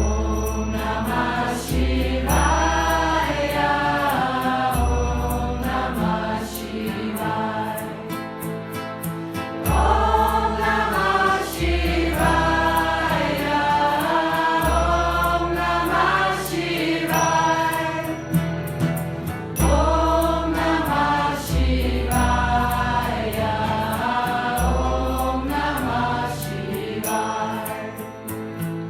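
Devotional mantra chanting in kirtan style: a group of voices singing a repeating melody over deep held bass notes, the phrase coming round about every ten seconds.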